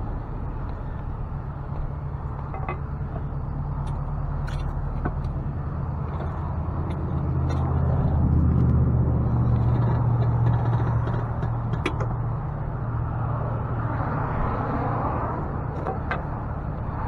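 A vehicle engine, likely the Ford F-550 tow truck's, running steadily and growing louder for a few seconds around the middle, with a few faint clicks.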